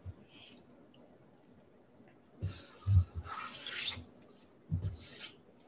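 Rubbing and rustling handling noise in two passes, the first with a low thump near its middle and the second short and near the end.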